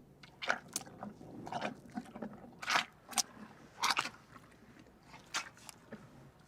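A rhinoceros chewing, with a run of irregular crunching bites.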